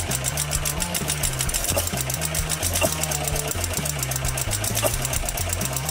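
Vintage stationary engine running, a fast, even mechanical clatter of about eight ticks a second.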